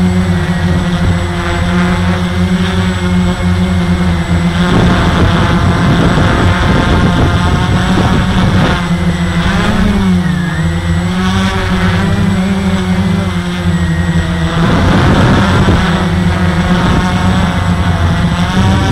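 Walkera QR X350 quadcopter's four brushless motors and propellers whirring steadily, heard from the onboard camera, the pitch dipping briefly about halfway through as the throttle changes. Twice the whir is partly covered by a rush of air noise.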